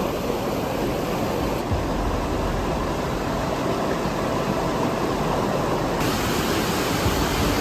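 Steady rush of fast-flowing creek water over rapids and falls, with the top of the sound changing slightly twice.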